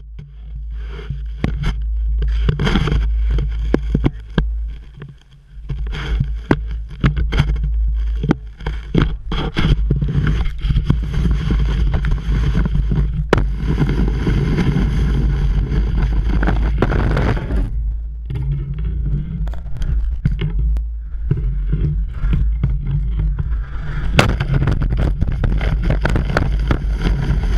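Wind buffeting the microphone of an action camera mounted on a skier's skis, a heavy steady rumble, with the skis scraping and clattering over snow in many sharp knocks. The noise dips briefly a few seconds in.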